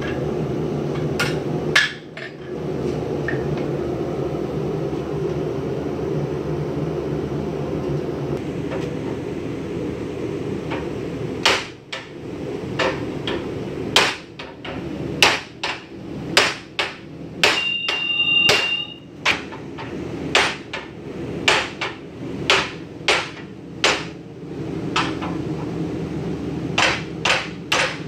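Hand hammer striking red-hot metal on an anvil: two blows near the start, then after a long pause a run of blows at roughly one to two a second through the second half. One blow leaves a clear ring of about a second and a half. A steady low hum runs underneath.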